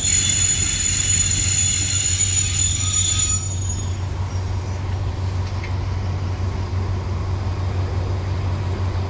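A passing train gives a high, steady metallic squeal made of several tones for about three and a half seconds. After that the squeal stops and a steady low rumble of the train continues.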